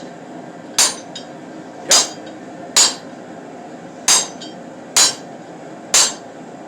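Six hand-hammer blows, about one a second, on the top die of a blacksmith's fullering tool. Each blow gives a sharp metallic strike with a short ring. The blows neck a hot steel bar down between rounded dies to form a shoulder, with the bar turned between blows.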